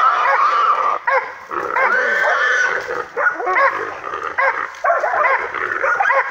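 A hog caught by hunting dogs, squealing, with the dogs barking and yelping around it: a dense, overlapping run of short calls, with longer held squeals at the start and about two seconds in.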